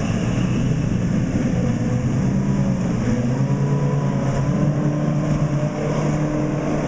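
Honda four-stroke outboard motor on a small race boat running at speed, a steady drone whose pitch wavers at first and then holds even about halfway through.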